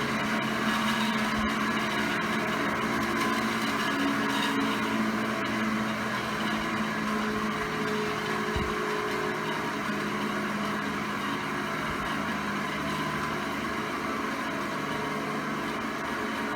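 ILG ILGJet 18-inch industrial box fan running on medium speed: a steady whir of air from the blade over a hum from its motor, with the rumble of worn-out ball bearings. It slowly gets a little quieter as it settles after being switched down from high.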